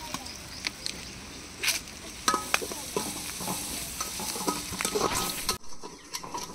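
A metal ladle stirring and scraping in an aluminium pot of onion and tomato frying for fish curry, with sizzling and sharp clinks of the ladle against the pot. The sizzling cuts off suddenly near the end.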